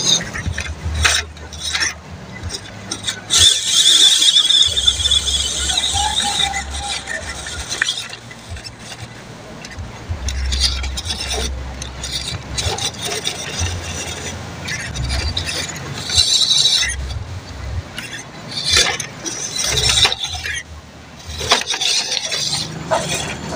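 A 1/12-scale MN99s RC rock crawler's electric motor and gearbox whining in stop-start bursts as it wades through shallow water, with splashing and clinks of the tyres on stones.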